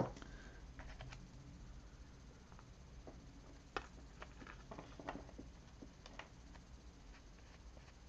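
Faint handling noises from hands working with small craft materials: a few small, sharp taps and clicks, the clearest a little before four seconds in, with others about a second apart after it.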